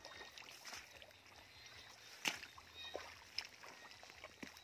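Quiet river water lapping and splashing in small bursts around a person standing chest-deep, with a sharper splash about halfway through.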